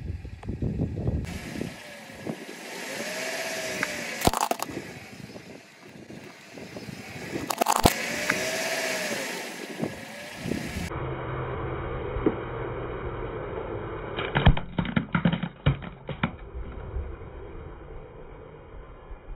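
A car's tyre slowly rolling over small plastic objects and felt-tip markers, crushing them. Under a low rumble there is a sharp crack about four seconds in and another about eight seconds in, then a quick cluster of cracks and snaps around fifteen seconds in.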